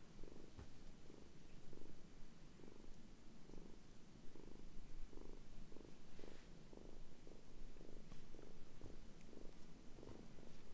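Young black-and-white kitten purring while being stroked, a faint steady purr pulsing about twice a second.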